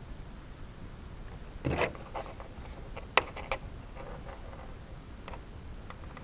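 Hand-handling sounds of string being pulled and knotted around a small wooden branch: a brief rustling pull about two seconds in, then a sharp click about three seconds in followed by a few light ticks.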